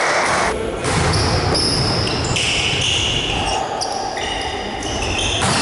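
Echoing sports-hall sound of an indoor volleyball game in play, with ball strikes and players moving on the court.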